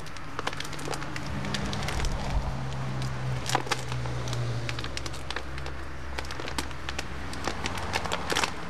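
A dried rabbit skin crackling with irregular sharp clicks as gloved hands bend it and turn it inside out: the pelt has gone too dry and stiff.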